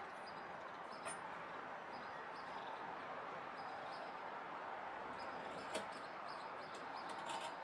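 Utility knife drawn along a steel ruler through vegetable-tanned leather on a cutting mat: a soft steady scraping with a few sharp clicks, one about a second in and others near the end.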